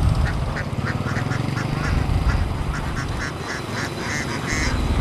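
A flock of domestic ducks quacking, many short calls in quick succession and overlapping, over a steady low rumble.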